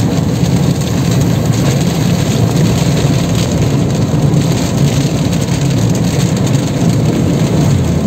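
Heavy rain falling on a moving vehicle, over the steady engine and road noise of driving.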